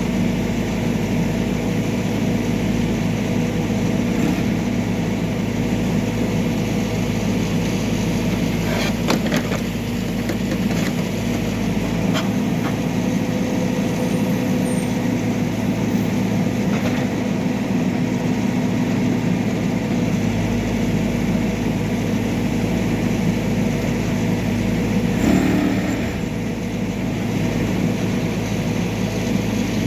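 Backhoe loader's diesel engine running steadily at a constant speed, with a few short knocks and clanks, most around ten seconds in and one near the end.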